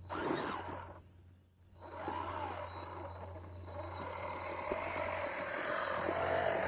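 Electric motor and gearbox of a 1:12 scale RC off-road truck whining under throttle: a short burst, a brief pause, then a longer run with the pitch rising and falling as the throttle changes.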